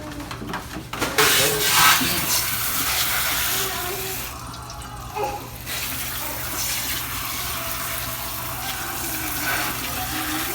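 Water running from a kitchen tap into a sink with splashing, as things are rinsed. The flow thins out briefly about four seconds in, then resumes.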